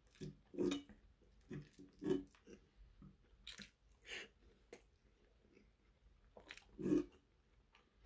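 Close-miked chewing and wet mouth sounds of someone eating a bite of steak and fried egg, coming in separate bursts with the loudest near the end, mixed with light clicks of a metal fork on a nonstick frying pan.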